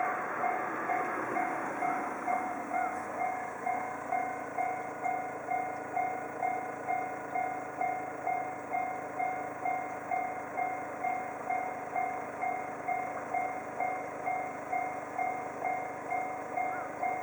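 Japanese railroad crossing warning bell ringing in a steady, rapidly repeated ding, while the rumble of a passing train fades out in the first two seconds.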